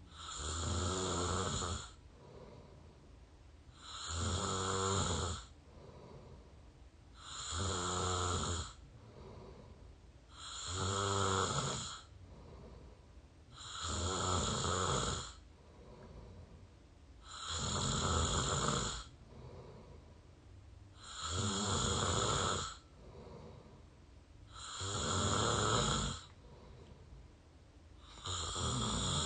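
A person snoring through an open mouth, recorded up close. There are nine steady, rhythmic snores, one about every three and a half seconds, each lasting a second or two.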